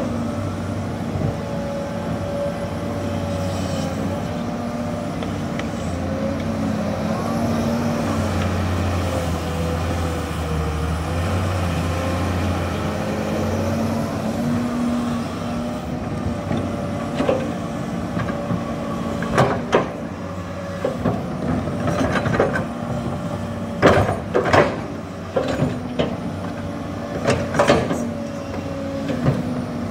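Hydraulic excavator's diesel engine running steadily, its note growing deeper and heavier for a few seconds near the middle, as when working under load. From about halfway there is a series of sharp knocks and clanks, typical of the machine levelling fill soil.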